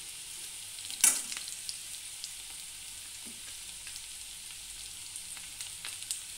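Onions, whole spices and ginger-garlic paste sizzling in hot oil in a kadai, with a steady hiss and scattered small crackles. About a second in there is one sharp, loud crack.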